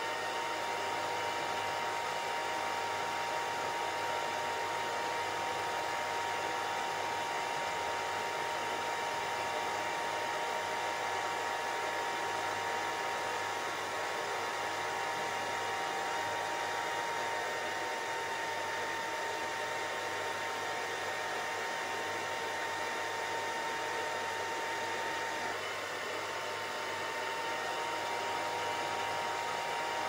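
Steady white noise: an even, unbroken rushing hiss, with a faint steady whine in the middle of the range that drops out for a moment near the end.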